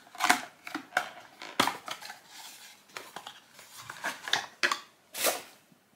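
Cardboard packaging being opened by hand and a porcelain coffee-to-go cup taken out: irregular rustling and scraping, with a few sharp knocks. The loudest knock comes near the end.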